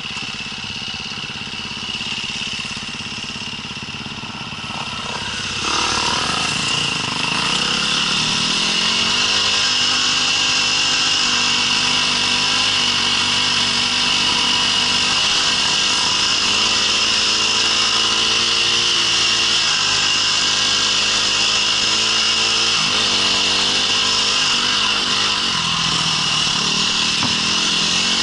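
Off-road vehicle engine running under way. It gets louder about six seconds in as it picks up speed, then holds a steady pull with small rises and dips in pitch as the throttle changes.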